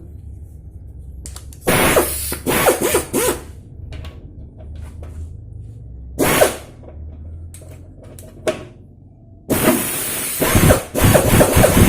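Pneumatic impact wrench with an 18 mm socket run in three bursts, the last one the longest, hissing and hammering as it loosens the front fork drain plug of an old Royal Enfield.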